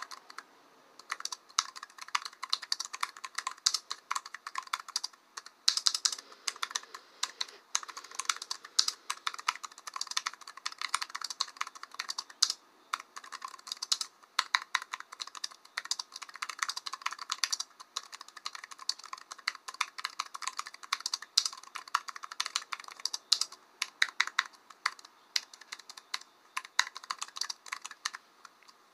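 Typing on a computer keyboard: rapid, irregular key clicks with a few brief pauses.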